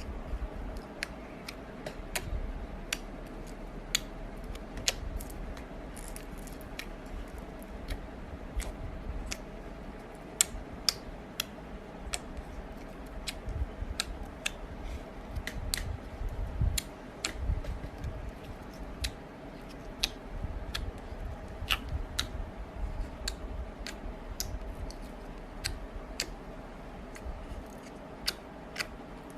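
Slime being squeezed and pressed by hand, giving many sharp, irregular clicking pops over a low, soft rumble, with a faint steady hum underneath.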